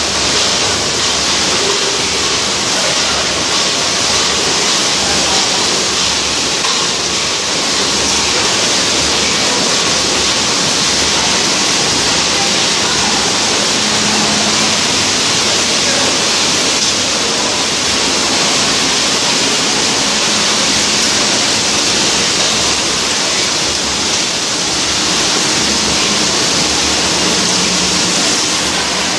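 Steady, loud hiss of factory noise from a meat-canning production line, with machinery running continuously and no distinct strokes or pauses.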